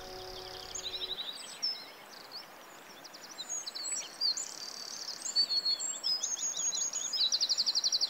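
Several songbirds singing and chirping over a faint hiss, with whistled notes and quick trills, including a fast trill near the end.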